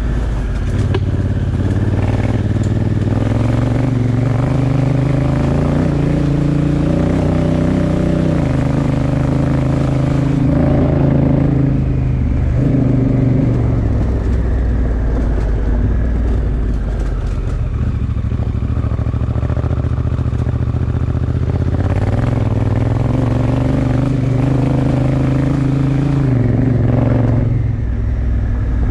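Honda Africa Twin Adventure Sports' parallel-twin engine running under way on a gravel track, its note dropping and rising several times with throttle and gear changes. Steady rough tyre noise on loose gravel runs underneath.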